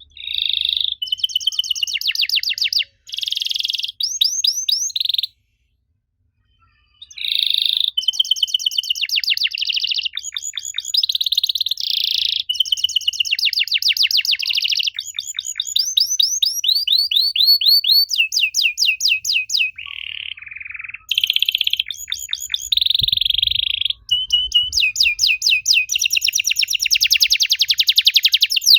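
Domestic canary singing a long song of rapid trills and rolls, with one break of about two seconds some five seconds in.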